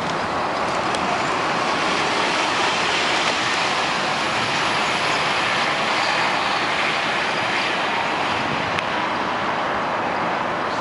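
NABI 416.15 transit bus with a Cummins ISL9 inline-six diesel driving past and away, engine running steadily under a wash of road and tyre noise. A faint click sounds near the end.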